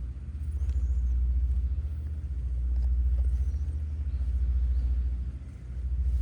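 Orange-and-white cat purring close to the microphone: a low, rapidly pulsing rumble that swells and dips with each breath, roughly every two seconds.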